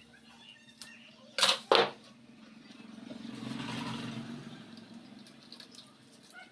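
Two sharp knocks in quick succession, then a passing motor vehicle that swells and fades.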